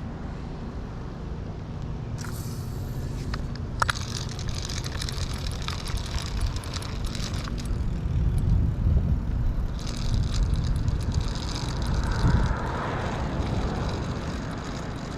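Steady low rumble of wind on the microphone and road noise while riding a bicycle, with a few sharp clicks and rattles.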